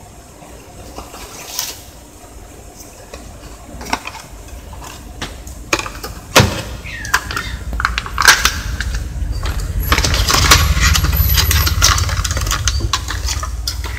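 An ink cartridge and its cardboard box and clear plastic packaging being handled: scattered clicks and taps, then a stretch of crackling and rustling in the second half.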